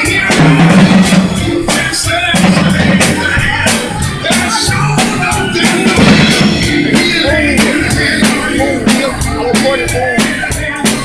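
Band music with a drum kit keeping a steady beat, over bass and other instruments.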